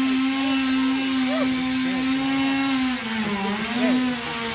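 Two-stroke chainsaw running at full throttle with a steady high pitch; its revs sag about three seconds in and recover, then sag again, as if bogging in the cut.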